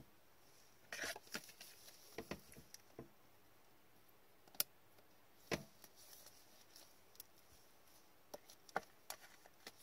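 Faint handling noise as a trading card is slid into a rigid plastic toploader by gloved hands: scattered light clicks and short scrapes of card and plastic.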